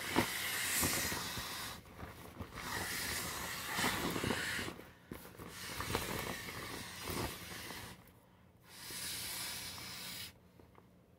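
Breath blown by mouth into the valve of an inflatable vinyl globe in about four long hissing puffs, with short pauses between them for breath. The thin plastic crinkles as it is handled and fills.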